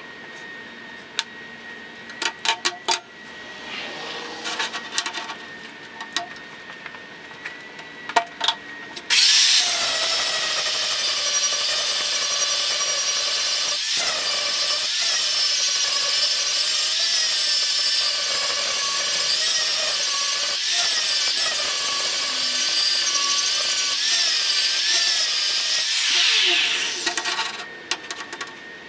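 Sharp metallic clicks and taps as a steel part is handled on a steel table, then a Makita angle grinder starts about nine seconds in and grinds steel, its pitch wavering with the load. Near the end it spins down and stops.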